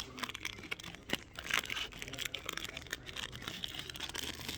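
A trading card pack's wrapper being torn open and crinkled by hand: irregular crackling and crinkling with scattered sharp clicks.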